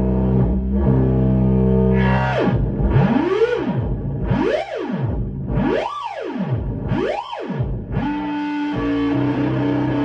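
Bass guitar played through a Death By Audio Crossover Fuzz pedal. A held fuzzed note gives way about two seconds in to a run of swooping rises and falls in pitch, about one a second, and then to another held note near the end.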